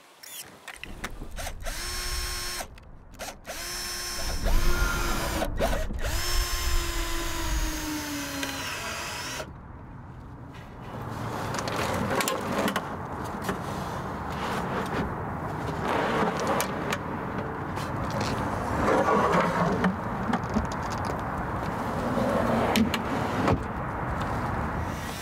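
Cordless drill driving screws into metal drawer slides in several short runs, its motor pitch sagging as each screw seats. After that comes a longer, noisier stretch of sliding and rattling as a plywood drawer is run in and out on its ball-bearing slides.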